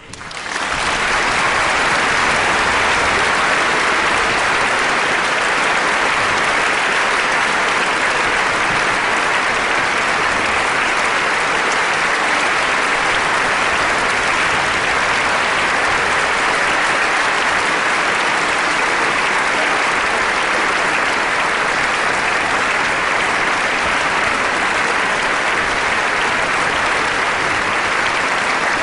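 Audience applause that breaks out as the last orchestral chord fades and goes on at a steady, full level.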